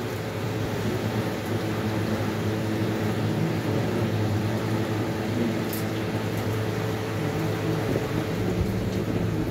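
Steady low hum of a running electric motor, such as a fan or appliance, with no change in pitch or level.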